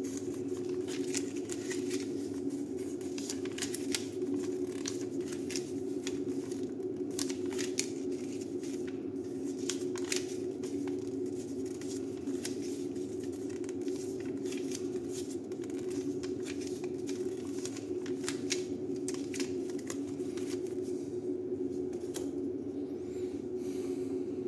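Paper rustling and crinkling in short irregular bursts as a folded paper instruction leaflet is unfolded and its pages turned, thinning out near the end, over a steady low hum.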